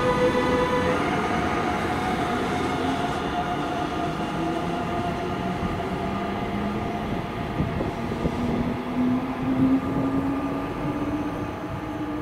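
DB class 146 electric locomotive accelerating away with its train. Its traction motors give a whine that climbs slowly in pitch, over the rumble of the wheels, with a few sharp knocks about two-thirds of the way through.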